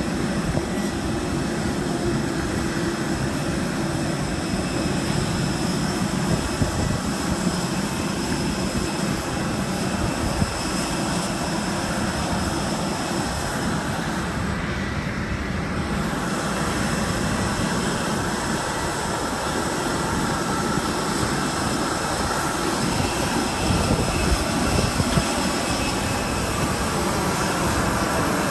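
Steady turbine noise of an Airbus A320 jet: a constant low rumble under a high whine, which dips briefly about halfway through.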